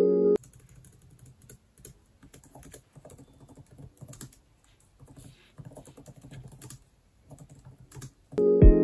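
Typing on a tablet's detachable keyboard cover: quiet, quick, irregular key clicks with a couple of short pauses. Background music cuts off just after the start and comes back loudly near the end.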